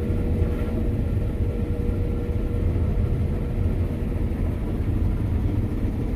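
Combine harvester running while harvesting: a steady low rumble, with a faint steady whine that fades about halfway through.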